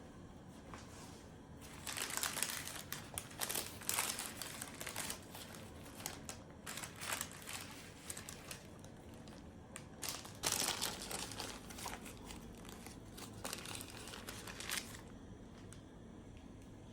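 Crinkly packaging being handled and crumpled, in irregular bursts from about two seconds in until near the end.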